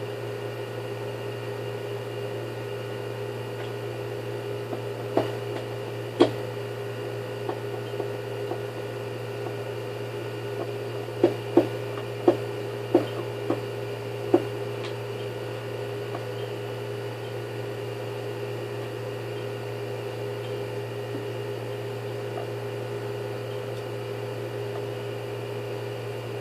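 Sharp clicks and knocks of tools and parts being handled while a vacuum cleaner motor is taken apart: a couple around five and six seconds in, then a quick run of about six between eleven and fifteen seconds in, over a steady hum.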